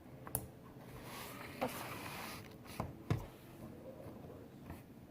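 Light handling noises: a few sharp taps and clicks, with a soft rustle for about a second and a half near the middle.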